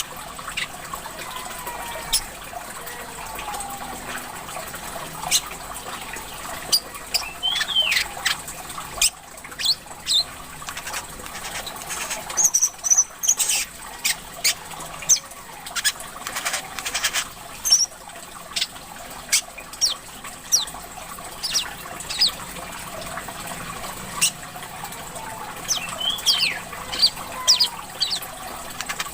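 Brown-throated sunbird (kolibri kelapa) calling busily with sharp, high chirps and quick gliding whistles, over a steady trickle of water.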